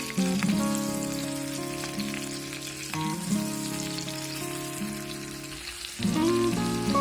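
Background music of held chords that change about every three seconds, over a steady fine crackle.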